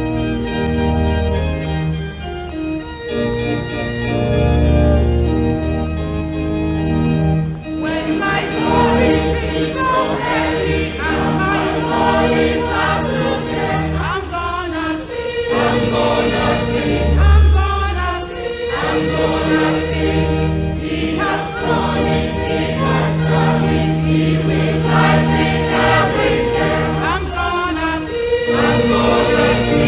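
Gospel music: sustained organ chords, with singing voices joining in about eight seconds in and carrying on over the organ.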